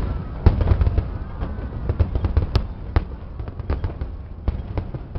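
Aerial fireworks shells bursting in quick succession: a dense run of sharp bangs and cracks over a constant low rumble.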